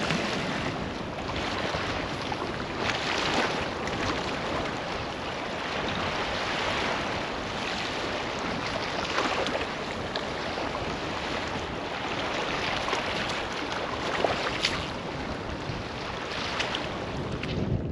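Small waves washing in and breaking over a flat reef rock shelf, a steady wash that swells in soft surges.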